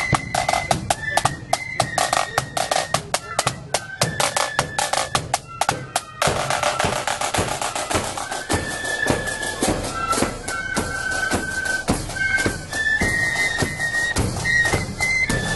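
A marching flute band plays a high, shrill flute melody over fast snare drumming and a bass drum.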